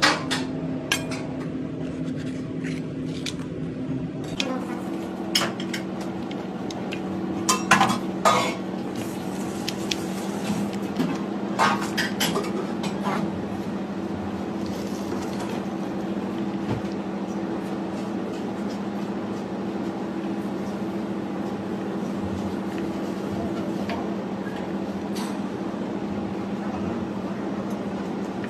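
Kitchen food-preparation clatter: a knife on a cutting board and clinks of food and utensils against a metal baking tray, in scattered sharp knocks that are busiest in the first half, over a steady low hum.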